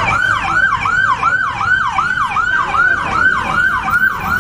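Electronic emergency siren in a fast yelp, its pitch sweeping up and down about four times a second without a break.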